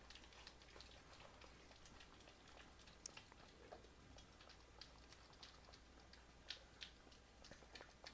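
Near silence: room tone with faint, scattered small clicks and ticks.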